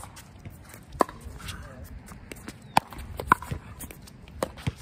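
Pickleball rally: paddles striking a plastic pickleball and the ball bouncing on the hard court, about five sharp, hollow pops at uneven gaps, the loudest a little past three seconds in.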